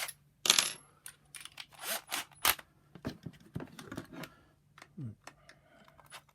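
Light, sharp clicks and clinks of hard plastic and small metal parts being handled while a Shark vacuum power nozzle is reassembled. The loudest click comes about half a second in, with a cluster of quicker ones a few seconds later.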